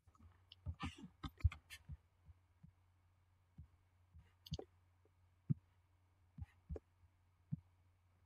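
Computer keyboard keystrokes and mouse clicks: a quick run of clicks about a second in, then single clicks every second or so, over a faint steady low electrical hum.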